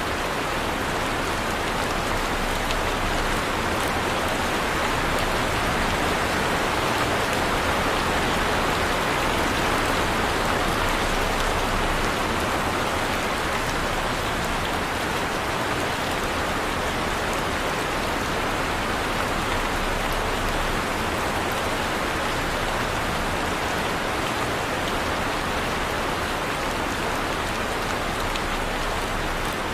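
Heavy rain falling steadily, a dense even hiss with scattered drops striking a surface.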